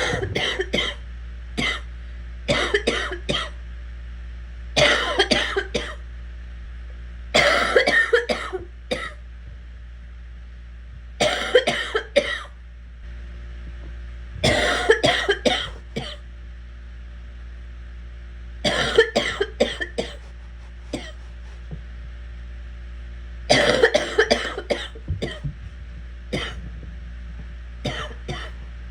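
A sick person coughing in repeated fits, each a quick run of several hacking coughs, one fit every three to four seconds.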